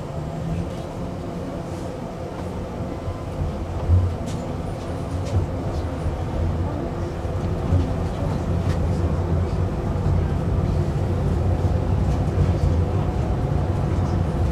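Tram running, heard from inside the car: a steady low rumble of wheels on rails, with a few short knocks, growing louder as the tram gathers speed.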